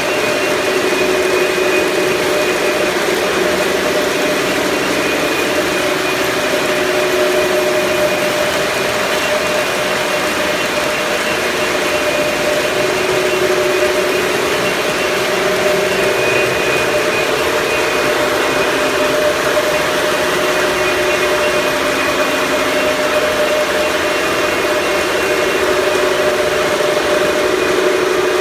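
Steady mechanical drone: a constant, even noise with several unchanging hum tones.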